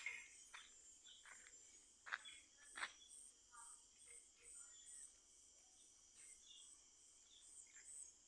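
Faint night crickets chirping in a steady, evenly pulsing trill, with a few sharp crackling pops from a wood bonfire.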